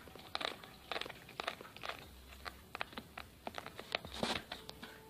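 A cat crunching dry food from a bowl: faint, irregular crunches several times a second.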